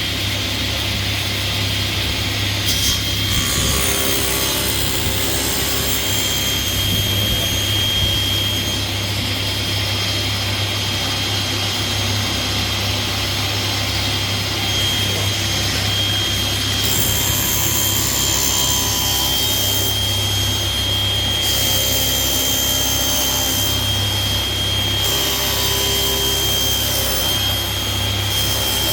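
Table saw running steadily with a high whine and motor hum as a board's edge is fed through it to be jointed straight, the blade trimming a thin strip off the edge.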